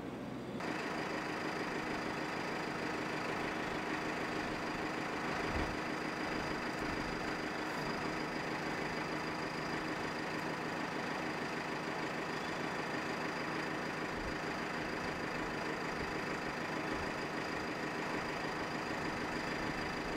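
A construction machine's engine running steadily at constant speed, starting abruptly about half a second in.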